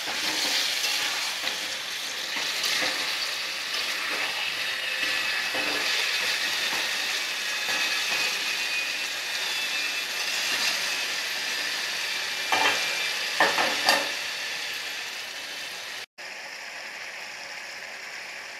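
Chicken and potato curry sizzling in a metal wok while a metal spatula stirs and scrapes the pan, with a few louder scrapes and clinks about two-thirds through. Near the end the sound drops out for an instant and gives way to a quieter steady hiss.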